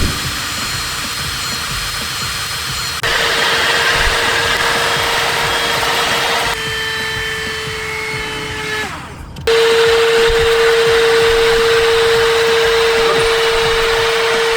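Cordless handheld car vacuum cleaners running on a dusty carpet: a steady motor whine over rushing air. The sound cuts abruptly from one vacuum to the next three times, each with a different pitch and loudness. Just before the last cut the whine sags and fades as a motor winds down, then a louder one takes over.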